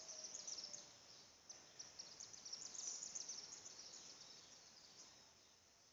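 Near silence, with faint high-pitched chirping in the background that fades away about five seconds in.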